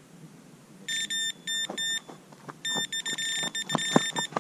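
Electronic carp bite alarm sounding: a high-pitched beep comes in short bursts from about a second in, then runs almost without a break as line is pulled through it, signalling a bite. A few knocks sound under it as the rod is grabbed, the loudest near the end.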